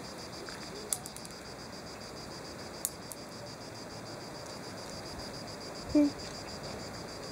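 Steady insect chorus with a fast, even pulsing, a few light clicks, and, about six seconds in, one short pitched call or voice that is louder than the rest.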